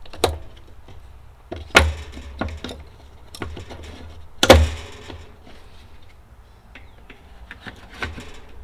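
D batteries being fitted into a kerosene heater's battery holder by hand: a few sharp clunks and clicks, the loudest about four and a half seconds in.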